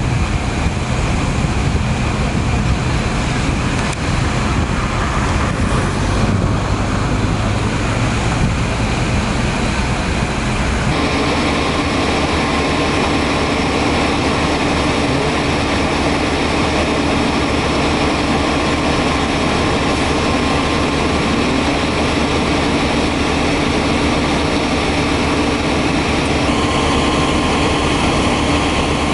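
Fire engines running steadily at the scene, their diesel engines driving the water pumps that feed the hoses, under a continuous rushing noise. About eleven seconds in the sound changes abruptly to a steadier engine hum with several held tones.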